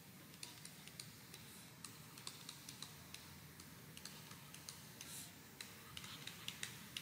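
Faint, irregular light clicks and taps of a stylus on a tablet during handwriting, coming more often near the end.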